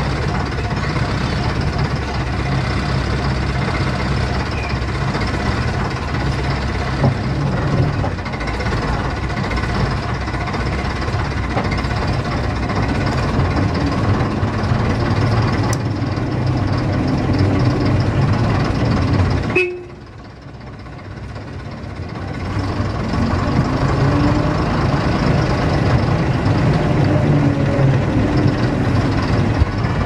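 The AEC 9.6-litre six-cylinder diesel engine of a London RT double-decker bus, running steadily as the bus drives along. About twenty seconds in the sound drops away suddenly, then the engine builds back up over a few seconds.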